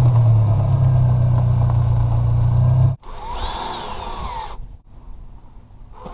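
A power drill runs steadily for about three seconds and cuts off abruptly. A quieter run follows in which the motor speeds up and winds back down.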